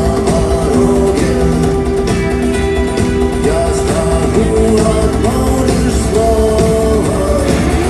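Rock band playing live and loud, guitars prominent over bass and drums, with singing.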